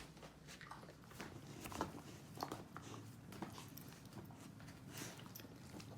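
A dog chewing and gnawing on a toy ball, making faint, irregular clicks and crunches.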